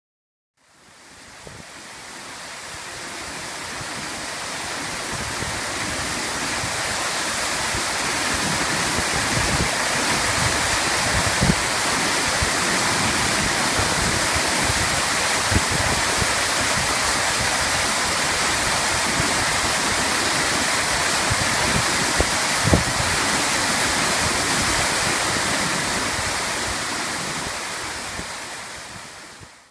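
Steady rush of floodwater being pumped out, a loud even gushing that fades in over the first few seconds and fades out near the end, with a few faint low thumps.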